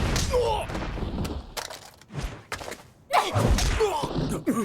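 Anime action sound effects: two spells of heavy thuds and a low boom, one at the start and one about three seconds in.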